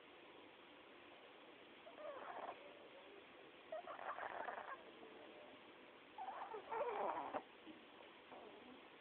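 Sleeping pug snoring, a noise typical of the breed's short, flat-faced airway. Three snores a couple of seconds apart, each longer and louder than the one before.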